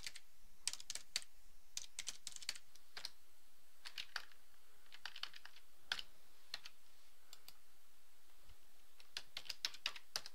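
Computer keyboard keystrokes: irregular quick runs of typing with short pauses between, faint.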